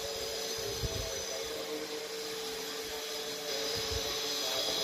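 A steady mechanical hum holding one even tone, with a few soft low thumps about a second in and again near the end.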